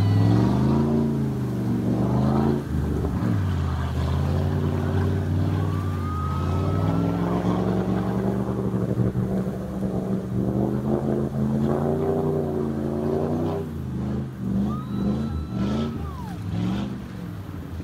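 Pickup truck engine revving up and down over and over as the truck ploughs through deep muddy floodwater, growing fainter near the end as it pulls away.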